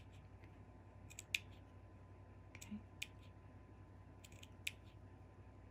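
Small scissors making tiny clips into the seam allowance of a curved piece of quilting fabric: about six short, sharp snips spaced out over a few seconds, with quiet between them.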